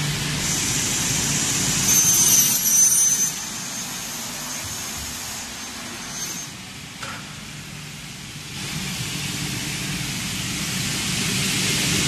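Double-head aluminium mitre saw running, its blade motors giving a steady high whine, with a louder harsh screech about two seconds in as the blades cut an aluminium profile. It goes quieter for a few seconds, then a rushing noise builds toward the end.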